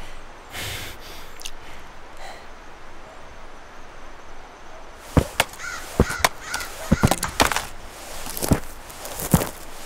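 Footsteps of leather boots crunching over dry grass and twigs. They start about halfway through, a step roughly every half second.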